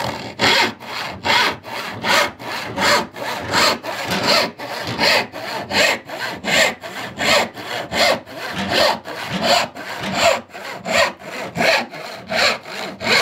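A hand saw cutting through an oak board in steady back-and-forth strokes, a little over two a second. The blade is a freshly cleaned and paste-waxed old saw that cuts in easily.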